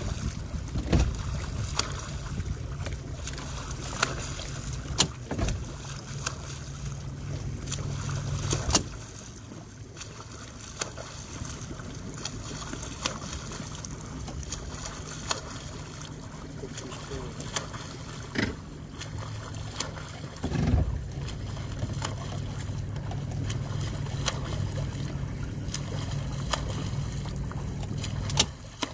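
Motorboat engine running slowly with a steady low hum, a little quieter for a stretch in the middle, with short splashes of water at irregular intervals.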